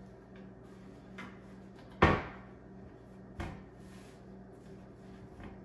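Wooden kitchen cabinet door shut with a sharp knock about two seconds in, then a softer knock a second and a half later, with light taps around them.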